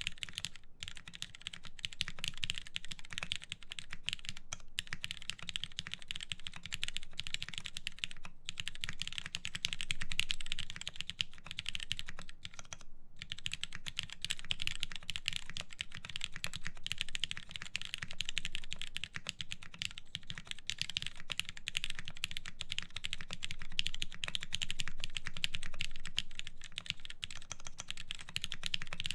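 Steady fast typing on a Merisi Works Ottantaquattro prototype mechanical keyboard, fitted with Cherry MX Black linear switches lubed with Krytox 205g0, an aluminum full plate and DCS keycaps. A dense stream of keystrokes is broken by a few brief pauses in the first half.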